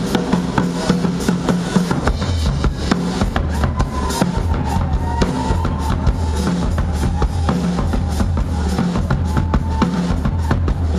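Live Brazilian band music: a drum kit with bass drum and snare keeps a dense, steady beat over a low bass line.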